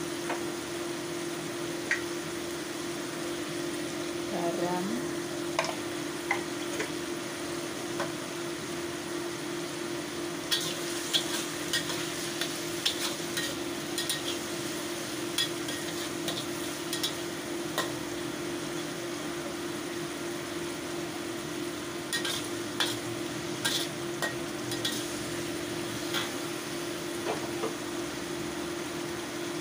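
Metal spatula scraping and clinking against a wok as carrot and cucumber strips stir-fry, with a steady sizzle underneath. The clinks come in spells, busiest in the middle and again later, over a steady low hum.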